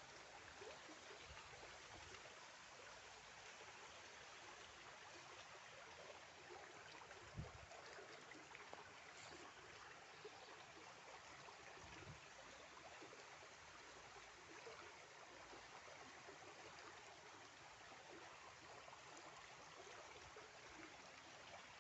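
Faint, steady rush of flowing stream water, with two soft low thumps, one about seven seconds in and one about twelve seconds in.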